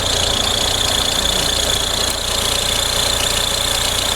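Audi A4 B6 1.9 TDI four-cylinder diesel engine idling steadily, with a steady high-pitched noise over the idle. The mechanic suspects a faulty belt tensioner as the cause of the noise, though he is not sure.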